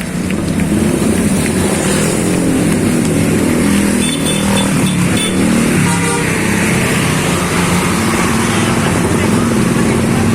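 A bus engine running loudly and steadily close by, with a low, wavering drone.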